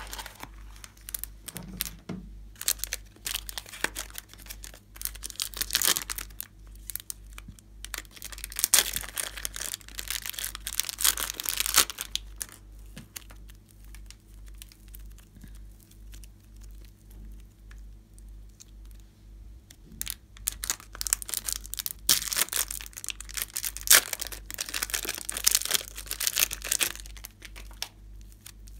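Glossy slime being worked by hand, crackling and popping in dense bursts. The crackling eases off for several seconds in the middle, then picks up again.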